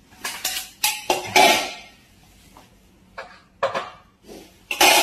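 Stainless-steel containers and lids clattering and clinking as they are handled: a run of sharp metallic knocks with brief ringing, the loudest about a second and a half in.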